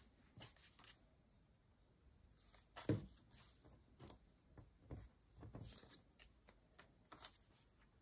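Faint rustles and light taps of stiff die-cut kraft-paper pieces being handled and pressed together on a paper sheet, with a soft thump about three seconds in.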